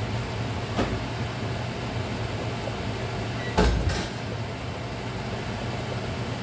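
Steady hum and hiss of a large pot of water at a rolling boil on the stove. About three and a half seconds in, a wooden kitchen cabinet door is opened with a knock.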